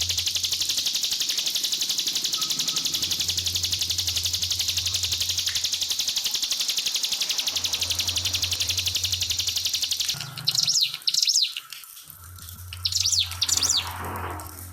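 Ciblek pinus (a prinia) singing in rapid-fire 'nembak' style: a fast, unbroken high trill for about ten seconds, then breaking into short bursts of chirps. A low hum comes and goes underneath.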